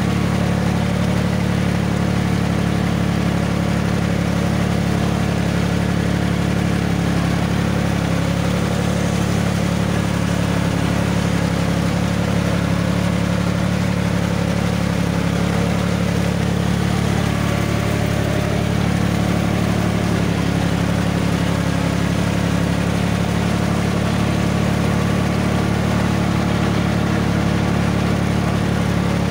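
John Deere tractor's diesel engine running steadily at low revs, heard from the driver's seat as a constant, even drone. A fainter engine note rises and falls briefly about halfway through.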